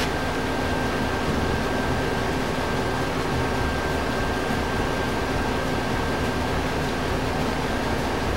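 Steady electric machine hum with a thin high whine above it, and no distinct knocks or clicks.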